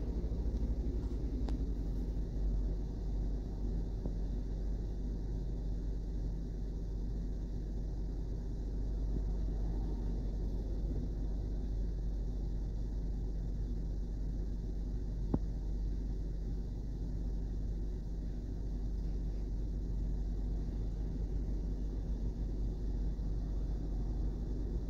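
Western Star garbage truck's diesel engine idling steadily, with a short sharp click about fifteen seconds in.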